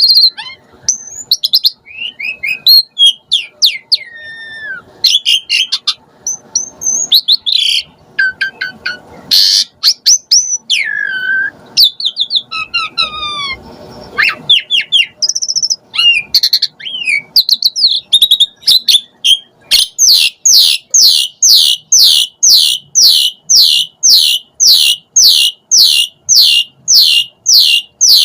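Asian pied starling (jalak suren) singing: a varied run of whistles, slurred notes and harsh chatter, then, about two-thirds of the way in, a fast, even series of repeated downward-slurred notes, about two to three a second.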